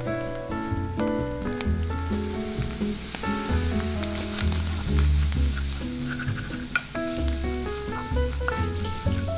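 Shredded tuna sizzling in a hot frying pan with soy sauce just added, stirred with a wooden spatula. The sizzle is loudest in the middle. Background music with a steady bass line plays under it.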